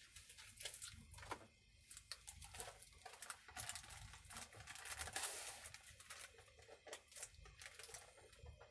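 Faint rustling with scattered light clicks and taps, as of things being handled.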